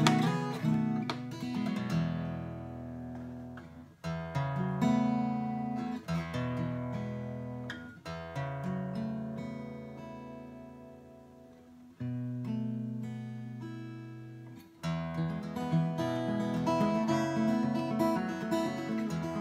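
Solo acoustic guitar picking slow arpeggiated chords that are left to ring and die away between new chords. Near the end it moves into denser, steadier picking.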